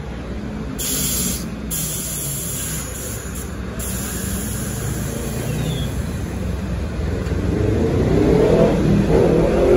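An R62A subway train rolling slowly along elevated track and gathering speed, its rumble growing louder throughout. Short hisses of air come about a second in and again from about two to four seconds in.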